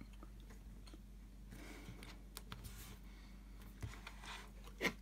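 Faint clicks and taps of fingers handling a smartphone on a wooden desk, over a low steady electrical hum, with one short louder knock just before the end.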